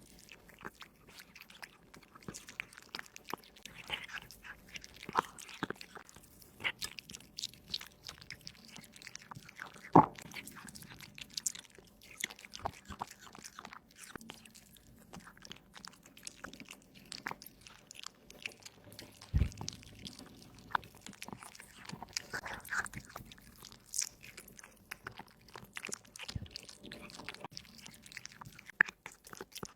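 A domestic cat chewing and biting raw meat and bone, with irregular crunches and wet clicks; one crunch about a third of the way in is much louder.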